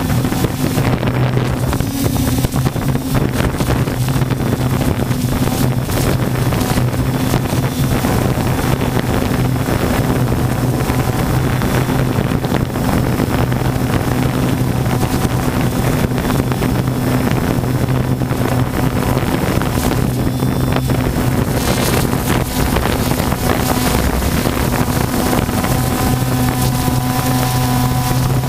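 Multirotor drone's motors and propellers humming steadily, picked up by its onboard camera, with wind buffeting the microphone.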